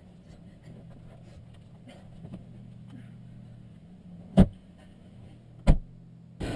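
Two car doors shut with heavy thuds, about a second and a half apart in the second half, over a faint steady low hum.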